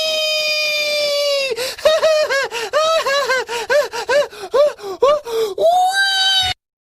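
A high-pitched voice holds one long note that slowly falls in pitch, breaks into a run of quick short cries, about two or three a second, then holds one more note and cuts off abruptly.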